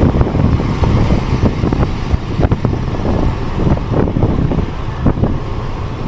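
Wind buffeting the microphone over the steady rumble of a vehicle moving along a road.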